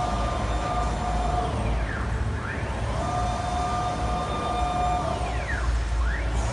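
CNC router's axis drive motors whining as the machine traverses back and forth. Each pass has a rising whine as it speeds up, a steady tone while it travels and a falling whine as it slows, repeating about every three seconds over a steady low rumble.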